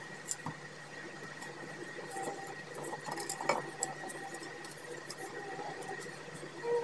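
Light clicks and small taps of hands handling a plastic socket piece, screws and a screwdriver while fitting them together, one sharper click about halfway through, over a steady background hum.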